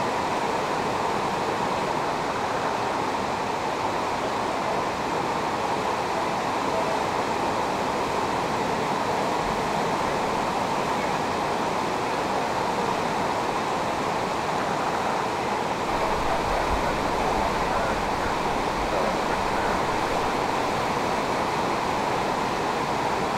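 Steady rushing of fast-flowing floodwater around trees and an inflatable rescue raft, with a low rumble joining about two-thirds of the way in.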